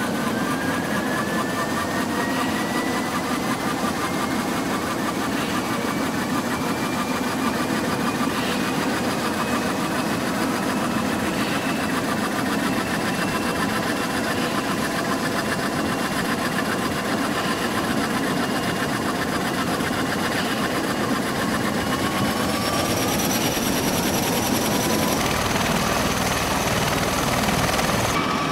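Bell Boeing V-22 Osprey tiltrotor running on the ground, its two Rolls-Royce AE 1107C turboshaft engines and proprotors turning: a loud, steady turbine whine over rotor noise. The whine rises in pitch over the first few seconds and climbs again about three-quarters of the way through, when a deeper rumble comes in.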